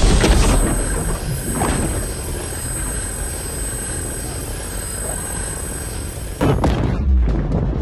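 Cartoon sound effect of two energy beams clashing: a loud blast at the start, then a steady rushing noise with a thin high whine, and a second blast about six and a half seconds in.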